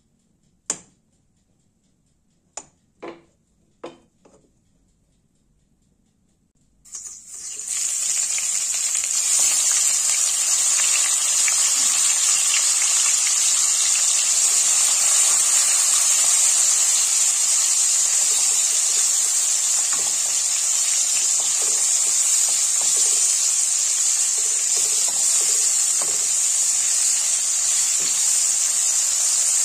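Four short clicks, then about seven seconds in a loud, steady sizzle starts: dried salt fish frying in hot oil in a stainless steel wok.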